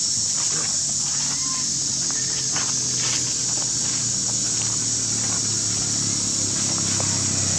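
Outdoor ambience: a steady high-pitched insect drone over a low, steady engine hum, with scattered light clicks and rustles of monkeys moving over dry leaves.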